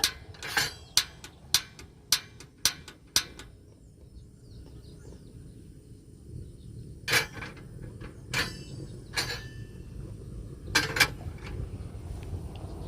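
A series of sharp knocks and clicks from hard objects being handled: seven in quick succession during the first three seconds, then four more spaced out, over a low steady rumble.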